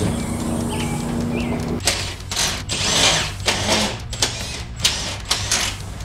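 A run of irregular rustles, clicks and clatter from hands working on the car's front end and a person getting down onto a floor blanket.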